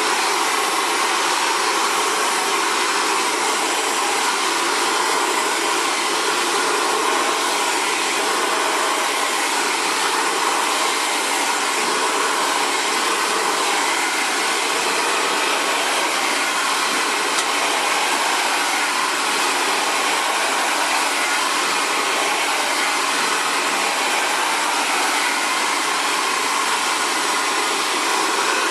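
Xtava Allure 2200-watt ionic ceramic hair dryer running steadily while blowing out natural curly hair, its level even throughout.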